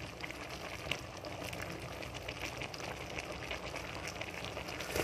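Red beans, vegetables and fried tilapia simmering in a shallow broth in a pot: a steady bubbling with many small pops.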